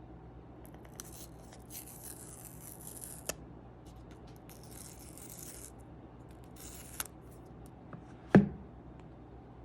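Hands handling smartphone packaging, with three spells of papery rustling and tearing, a couple of light clicks, and one louder knock near the end.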